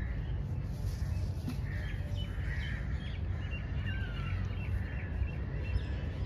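Birds chirping and calling, with short chirps and one falling call about four seconds in, over a steady low rumble.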